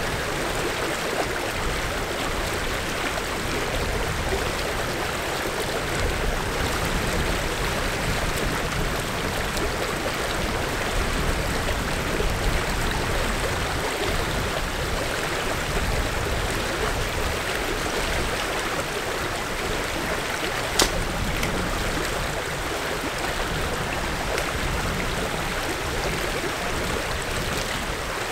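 Small brook swollen with high water rushing steadily, with a single sharp click about two-thirds of the way through.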